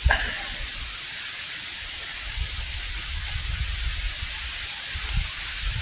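Steady hiss of falling rain, with an uneven low rumble underneath.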